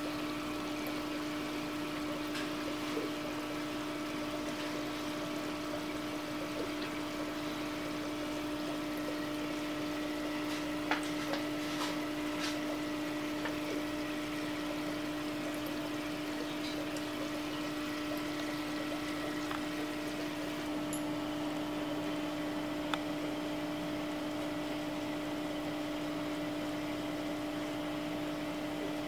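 Aquarium pump humming steadily over a soft wash of running water, with a few faint clicks.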